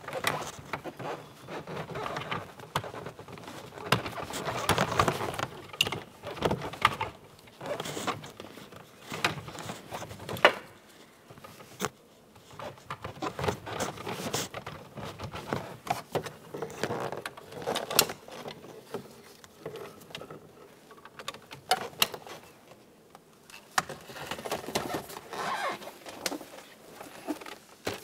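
Plastic electrical connectors and wiring harness in a car door being handled and plugged back in: irregular rustling and knocking of wires and plastic, with a few sharp clicks as connectors latch.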